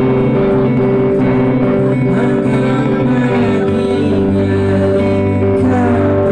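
A live band playing a calm, quiet song, mostly guitars holding sustained chords over bass. The chord changes about three and a half seconds in.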